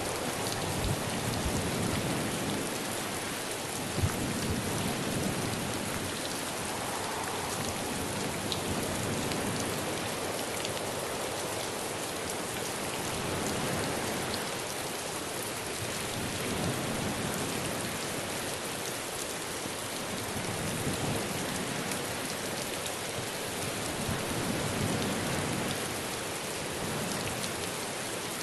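Steady rain falling, with a few sharper drop ticks now and then.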